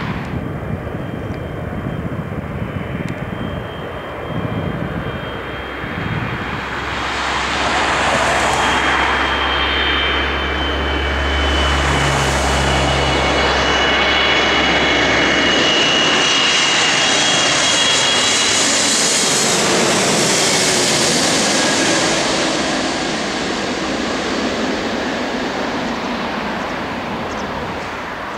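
Twin-engine widebody jet airliner on final approach with its landing gear down, its engine whine growing louder as it passes low overhead, loudest near the middle, then fading as it goes down toward the runway.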